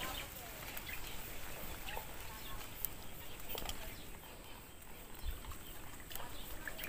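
Quiet outdoor ambience: a few faint clicks and rustles from hands working a fishing hand line, with faint bird chirps.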